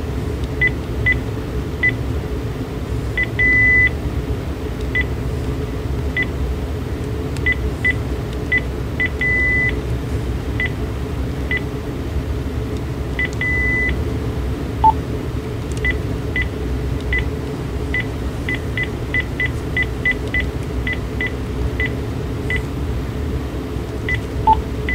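Key-press beeps from a Panasonic KX-TG9333 cordless handset as its buttons are pressed through the settings menu. The beeps are short and high, some alone and some in quick runs, with three longer beeps along the way, heard over a steady low hum.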